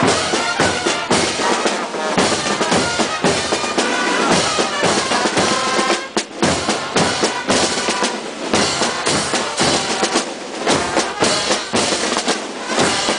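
Scout marching band of brass and drums playing, with bass and snare drums beating a steady marching rhythm under the brass. Loudness drops briefly about halfway, and the drums stand out more in the second half.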